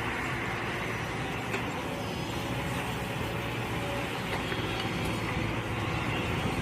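Mini excavator engine running steadily.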